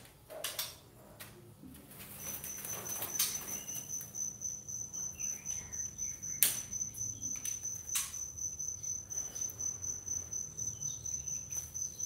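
A cricket chirping in a steady, high, fast-pulsed trill that starts about two seconds in, with a few sharp knocks and clicks from bamboo bird cages being handled, the loudest about six and a half seconds in.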